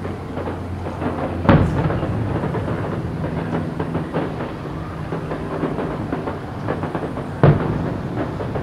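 Fireworks display: two loud booms of aerial shells bursting, about a second and a half in and again near the end, over continuous crackling from low fireworks.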